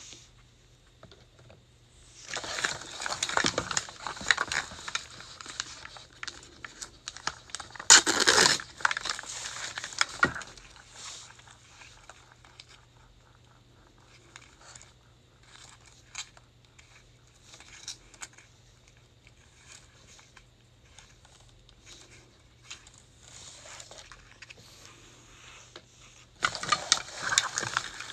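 Thin plastic wrapping crinkling and tearing as a Mini Brands toy capsule and its wrapped miniatures are peeled open by hand. The crinkling comes in stretches, loudest about eight seconds in, with small clicks and rustles of handling between, and picks up again near the end.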